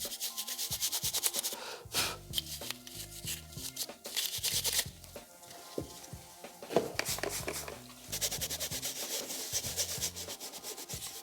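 Scrubbing on a car door panel's speaker grille mesh to clean the dirt off, in several spells of quick back-and-forth strokes.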